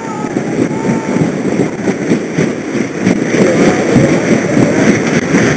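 Wind buffeting the microphone aboard a Thames A rater under sail, with water washing along the hull. The noise surges and drops unevenly.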